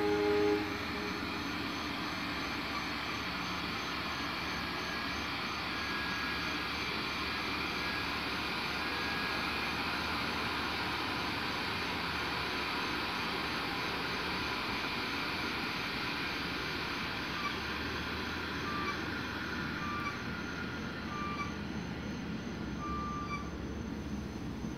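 Amtrak ACS-64 electric locomotive and its train standing at the platform, the locomotive's equipment giving a steady, even hum and hiss. A train horn finishes in the first half second, and faint short beeps come at intervals later on.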